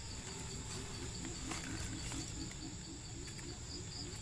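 Forest insects chirring steadily in a high, continuous drone, with a faint low call pulsing about four times a second underneath.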